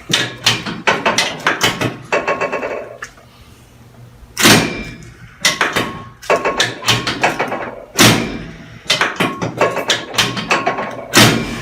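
Chiropractic drop table's drop piece giving way under three sacral adjustment thrusts, three loud clunks about three and a half seconds apart. Smaller clicks and knocks come between them.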